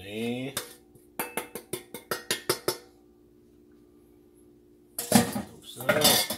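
A quick run of about nine sharp metallic taps: a steel mixing bowl knocked against the rim of a tin flour sifter to shake the last flour out. Near the end a man hums briefly without words.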